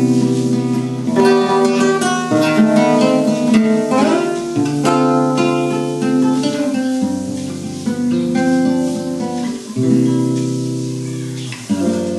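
Solo acoustic guitar playing, plucked melody notes and quick runs over held bass notes that change every second or two.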